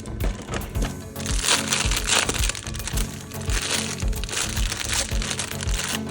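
Background music with a steady beat, with bursts of crackling and crinkling over it, as of plastic toy packaging being handled, loudest from about one to two and a half seconds in.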